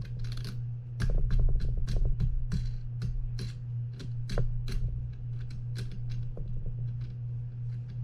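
Irregular small clicks and taps of metal reel hardware being handled, as the wing nut is worked on the Penn 9/0's rod clamp screw to check the freshly straightened threads, over a steady low hum.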